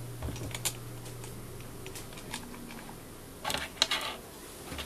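Light clicks and taps of hard parts being handled and fitted at the front end of a Bosch GSH 11 E demolition hammer during reassembly. There are a few single clicks, then a quick cluster of louder ones about three and a half seconds in.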